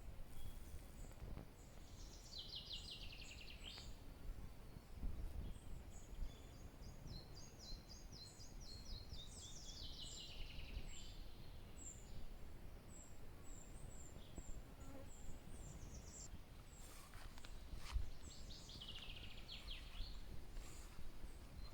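Songbirds singing in woodland: repeated trilled phrases, each a second or two long and falling in pitch, with scattered short high notes, over a faint low rumble. A few sharp clicks near the end.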